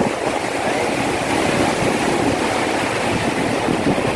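Muddy river water gushing through a sluice gate whose leaf has failed to close, churning and foaming against the concrete pier in a steady, loud rush. The water is driven by a high tide outside against a much lower level inside.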